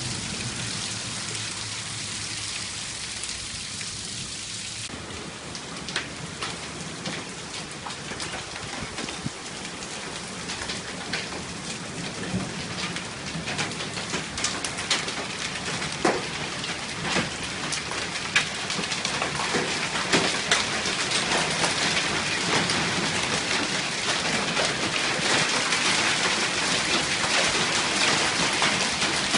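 Hail and rain pelting down, a steady hiss with many sharp hits of hailstones striking, thickening about five seconds in and growing louder and denser toward the end.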